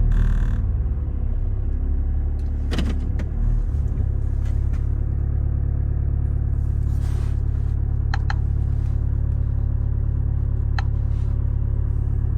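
Hyundai Tucson ix running steadily with a low rumble, with a few brief sharp clicks over it.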